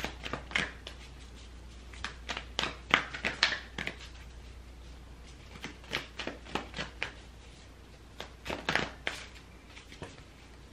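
A deck of oracle cards being shuffled and handled by hand: clusters of quick, papery clicks and flicks with short pauses between them.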